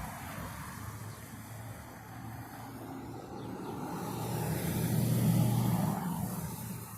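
A car driving past, its engine hum and tyre noise swelling to a peak about five seconds in, then fading away.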